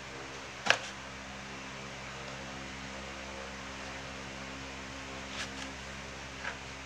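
Kitchen knife slicing an eggplant into rounds, the blade tapping down onto a plastic cutting board: one sharp tap about a second in and a few lighter ones near the end. A steady electrical hum underlies it.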